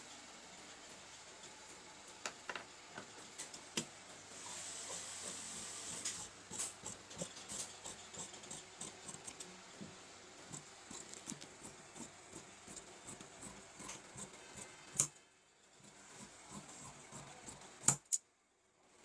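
Large steel tailor's shears cutting through shirt cloth: a run of irregular snips and blade clicks with a light rasp of cloth, and two sharper clicks near the end.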